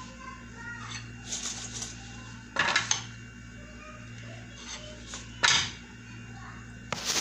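Metal pots and utensils clanking against each other on the stove: a few sharp clatters, the loudest about five and a half seconds in, over a steady low hum.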